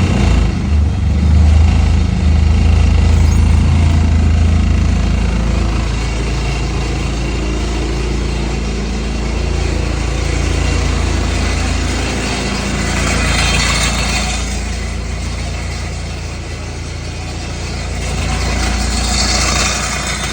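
Diesel engine of an ASV RC50 tracked skid steer running just after a cold start on glow plugs. It is louder for the first few seconds, then settles into a steady idle. A loose exhaust adds a rattle.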